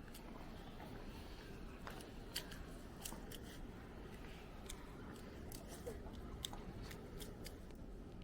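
Irregular sharp crunches and scrapes of snow being scooped and packed while building a snow castle, over a low steady rumble.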